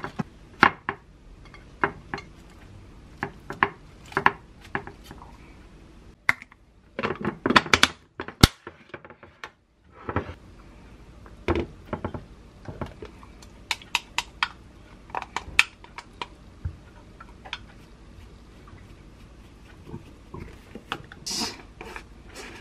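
Sharp clicks and light knocks of food containers being handled on a kitchen counter: a glass container with a plastic snap lid and small plastic tubs set down and closed, and a spoon scraping sauce into a tub. A short rustle comes near the end.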